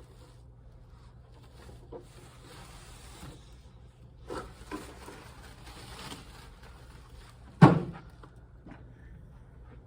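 Rustling and handling noises with a few light knocks about four seconds in, then one sharp, loud thump about seven and a half seconds in, over a steady low electrical hum.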